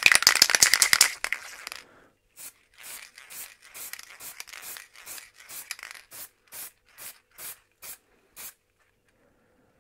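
Aerosol can of black spray paint: the mixing ball rattles as the can is shaken for about the first second. Then comes a quick run of short hisses of spray, two or three a second, which stops before the end.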